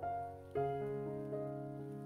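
Soft background piano music: notes struck every half second or so, each ringing on and fading.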